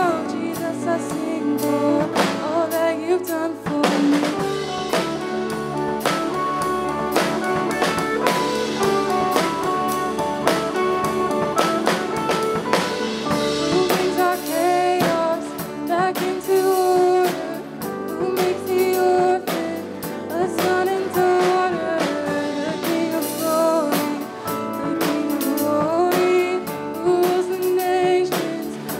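A worship song: singing over a band with a drum kit keeping a steady beat.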